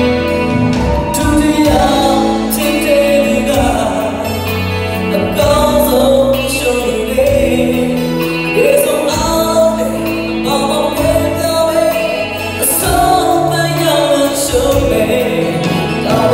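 Live band music: a male vocalist singing through a microphone over a drum kit and amplified backing instruments.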